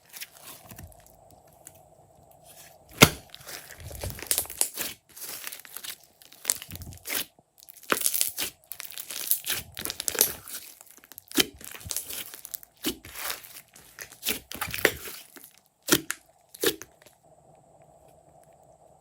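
Slime being squeezed, stretched and folded by hand, giving irregular sticky crackles and pops that stop near the end.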